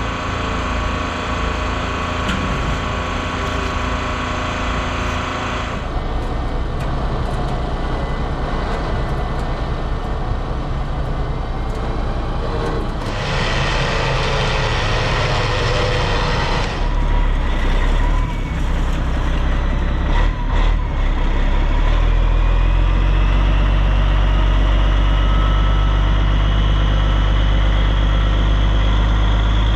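A truck engine running steadily with road noise, its sound shifting a couple of times, then a heavier low hum near the end with a slowly rising pitch as it speeds up.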